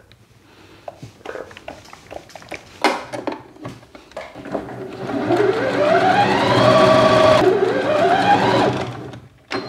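Elna 450 sewing machine stitching through fabric in two runs: its motor whine rises in pitch as it speeds up, holds steady, cuts off, then runs up again and winds down near the end. A few light clicks and taps come before the machine starts.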